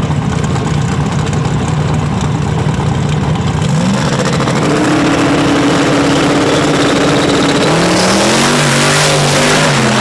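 Two turbocharged drag cars, a big-block Chevy Nova and a Camaro, running side by side at the start line. About four seconds in the engines are brought up to a higher steady rpm and held there, and about eight seconds in they launch, the engine pitch climbing as the cars pull away.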